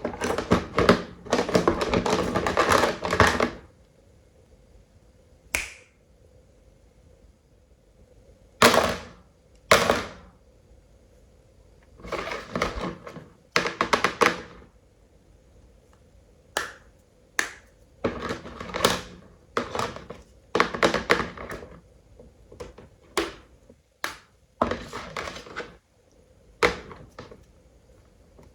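Toy animal figures being handled: clusters of taps, clicks and knocks, several bunches of rapid clicks with short quiet gaps between.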